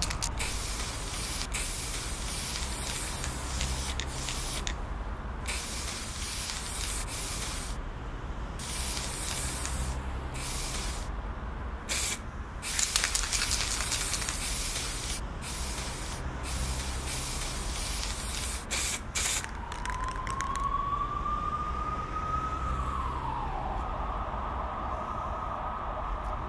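Aerosol spray paint can hissing in long sprays broken by short pauses, over a low pulsing rumble. The spraying stops about three quarters of the way through, and a tone then glides slowly up and drops back down.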